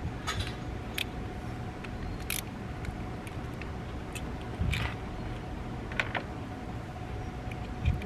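Scattered small metallic clicks and ticks of screws being handled and set on a screwdriver tip, one a little louder with a soft knock about two-thirds of the way in.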